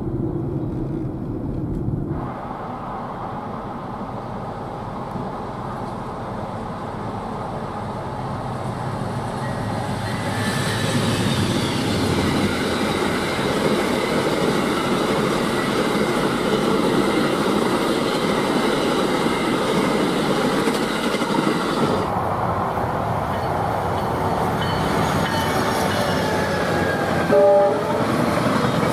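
Passenger trains passing at speed, one after another: a steady rumble and rush of wheels on rail, first from the Amtrak Silver Star's single-level cars, then from Tri-Rail bilevel coaches. A train horn sounds briefly near the end.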